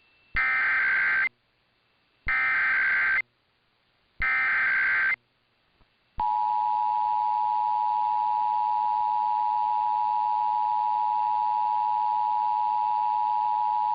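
Emergency Alert System test signal: three short bursts of SAME header data, a buzzy digital warble about two seconds apart, then about six seconds in the steady two-tone EAS attention signal (853 and 960 Hz) sounding without a break.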